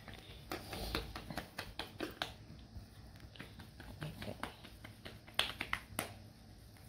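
Scattered light clicks and taps of handling noise, irregular and a few each second, with one brief low vocal sound about four seconds in.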